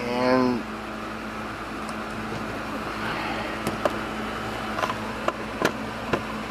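Scattered sharp clicks and taps as screws are pushed by hand into a plastic wheel-well liner, over a steady low hum. A brief wavering hum sounds at the very start.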